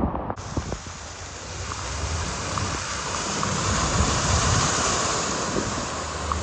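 Steady rushing of water on a flooded road, swelling around the middle, over a low rumble.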